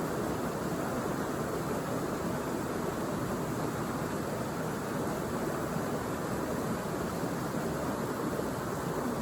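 Rushing water of a rainforest river or waterfall: a steady, unbroken rush with no separate events.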